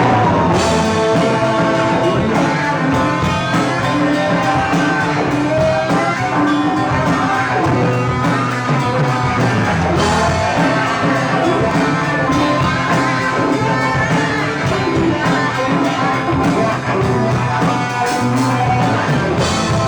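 Live rock band playing a song, with guitar and drums; no lead vocal words come through.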